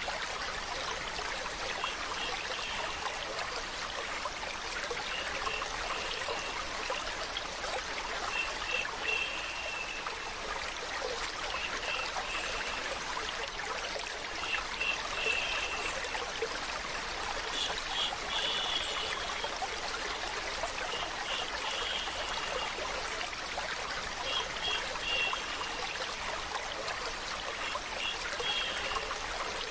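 Steady running and trickling water, with small brighter splashing flickers recurring every two to three seconds.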